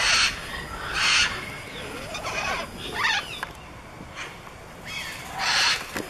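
Amazon parrots squawking and screeching in excitement. There are three loud, harsh screeches: one at the start, one about a second in and one near the end, with shorter pitched calls that slide up and down in between.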